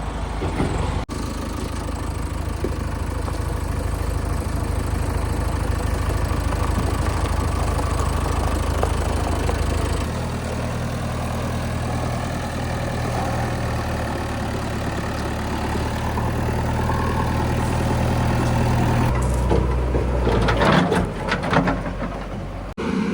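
Heavy diesel engine of an earthmoving machine running steadily, its note shifting a little about ten seconds in, with a cluster of clanks and rattles near the end.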